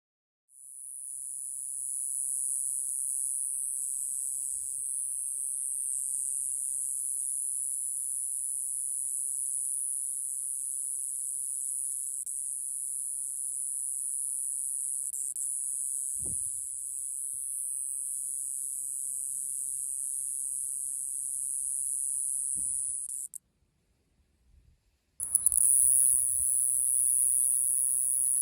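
Iwasaki grass cicada (Mogannia minuta) singing: a continuous, very high-pitched buzz that stops about 23 seconds in and, after a short pause, starts up again.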